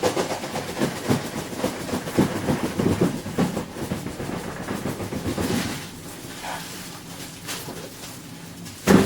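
Large cardboard box being pulled out of its shipping carton: rapid scraping and rubbing of cardboard on cardboard for about six seconds, then quieter handling and one sharp thump near the end.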